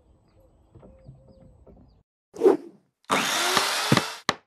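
Faint outdoor background, then end-card sound effects: a short swish, a harsh, noisy sound lasting about a second, and a sharp click near the end.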